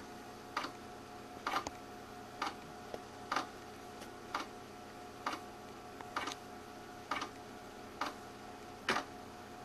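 Failing IDE hard drive in a Power Macintosh 6500 clicking regularly, about once a second, while it is being initialized: the repeated 'click of doom' of a failed drive. A steady hum from the computer runs underneath.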